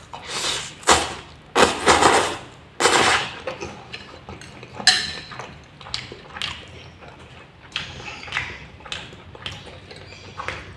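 Close-miked eating: four loud noisy bursts of chewing and slurping in the first few seconds, then quieter chewing with short clicks, typical of a spoon or fork against a plate.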